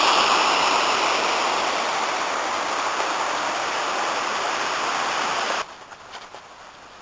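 Small tributary stream rushing down to the Afon Artro: a steady rush of water that eases a little, then cuts off suddenly about five and a half seconds in.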